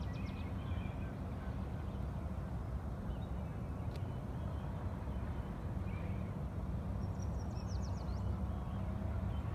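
Small birds chirping now and then, with a quick run of short notes near the end, over a steady low rumble.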